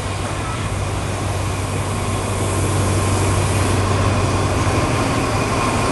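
A diesel-electric locomotive's engine running with a steady low hum, gradually growing louder as the express train draws into the station.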